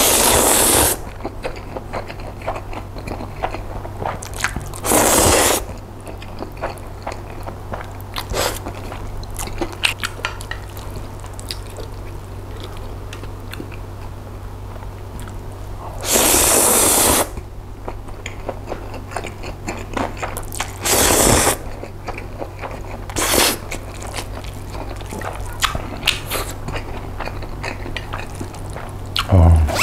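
Chewy spicy jjolmyeon noodles slurped loudly into the mouth in several one-second slurps, with wet chewing and small mouth clicks in between. A dull low thump near the end.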